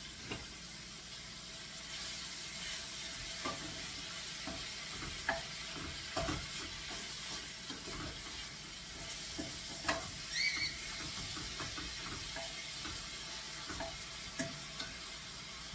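Food sizzling steadily in a stainless steel pan on the stove while it is stirred, with the utensil scraping and clicking against the pan. There is one brief squeak about ten seconds in.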